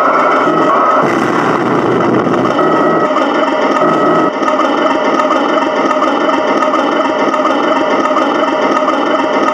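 1/16 Tamiya RC tank's onboard sound unit playing a steady, throbbing tank-engine idle loop through its speaker while the tank sits still.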